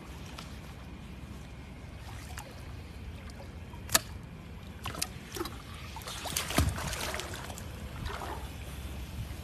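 Water sloshing and splashing as alligators move in their pool, with a sharp click about four seconds in and a louder splash with a low thud a little past the middle.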